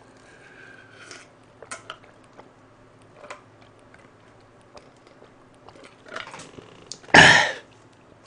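A person drinking in long gulps from a plastic mug, with faint swallowing clicks, then a loud short burst of breath about seven seconds in as the drink ends.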